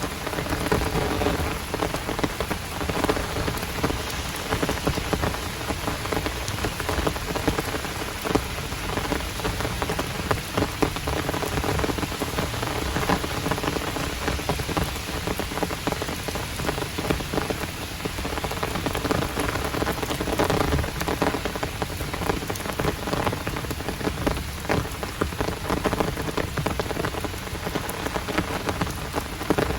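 Heavy downpour: rain falling steadily, with a dense patter of close drop hits.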